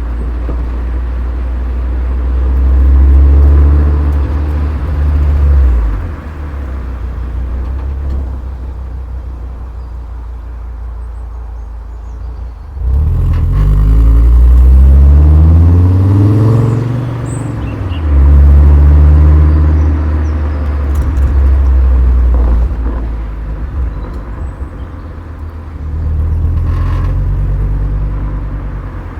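Volkswagen Golf Mk4 VR5's five-cylinder engine and exhaust under way, with a deep steady rumble. It pulls hard several times, the loudest about halfway through where the engine note climbs through the revs, easing back to a quieter cruise in between.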